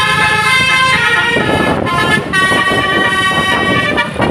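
Bus "telolet" musical horn, a set of several horns sounding held notes that jump to a new pitch twice, over engine and road noise.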